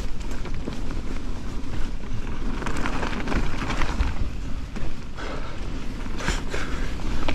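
Riding noise of an enduro mountain bike descending a dirt forest singletrack: tyres rolling over dirt and roots, with the bike rattling and knocking over the bumps.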